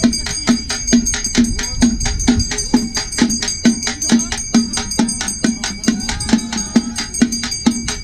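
Tamil frame drums (tapou) beaten with sticks in a fast, steady processional rhythm: quick sharp strokes several times a second, with deeper hits about twice a second, over a steady high ringing.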